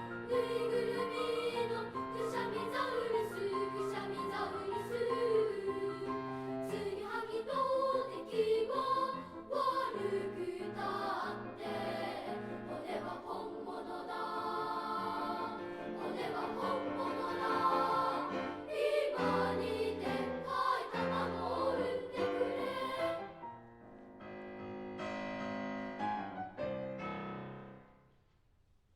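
Children's choir singing the closing section of a choral song. About 23 seconds in the sound drops away briefly, then a quieter final phrase follows and ends about a second before the close.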